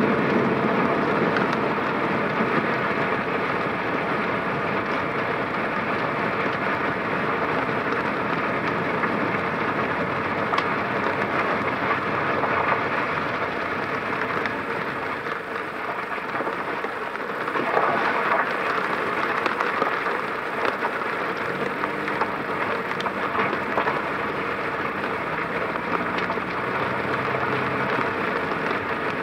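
Car driving on wet road in the rain: steady hiss of tyres on wet pavement and rain, with a brief louder swell of hiss a little past halfway.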